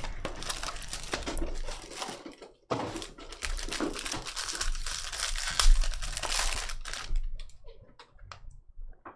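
Wrapping on a box of baseball cards and its packs being torn open and crinkled, in two dense bursts of crackling with a short pause between them, then light scattered clicks from handling for the last couple of seconds.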